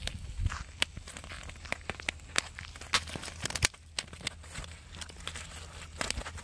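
Irregular sharp clicks, crackles and gritty scrapes: a freshly caught baam (spiny eel) thrashing and slapping on a gritty concrete path, with sandalled feet shuffling beside it. The loudest click comes a little past halfway.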